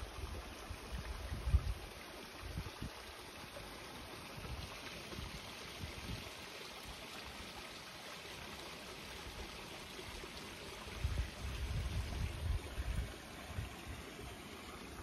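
Small forest stream trickling and splashing over mossy rocks in a steady rush, with low rumbles about a second in and again a few seconds before the end.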